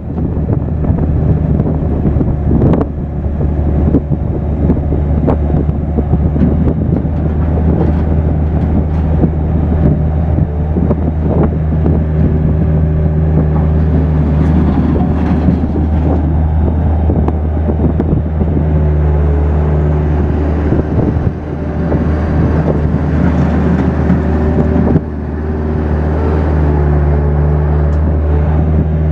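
Bobcat 7753 skid steer loader's Kubota diesel engine running steadily, with scattered knocks and a change in engine note near the end.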